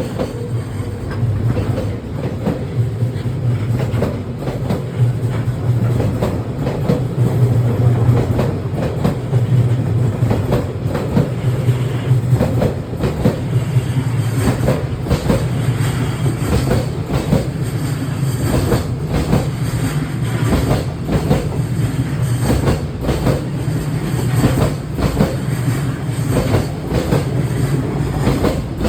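A long freight train hauled by an EF210 electric locomotive rolling past at speed, a steady heavy rumble with repeated clickety-clack of the wagons' wheels over rail joints.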